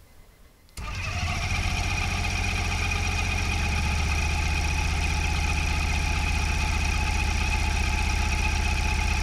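Kolb ultralight's pusher engine starting: it catches suddenly about a second in and runs steadily.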